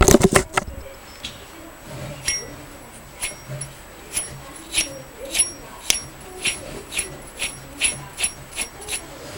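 A few loud knocks at the very start, then a rhythmic tick with a short metallic ring, about two a second and quickening slightly, from a bearing on a Toyota AE86: an abnormal bearing noise.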